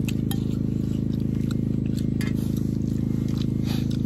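A running motor giving a steady low drone with a fast, even pulse, with scattered faint clicks over it.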